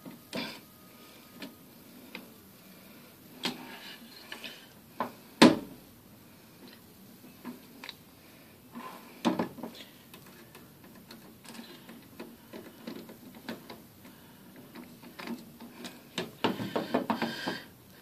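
Scattered clicks, taps and light scrapes of a screwdriver and a graphics card being handled on a desk, with one sharper knock about five seconds in and a quick run of clicking and scraping near the end.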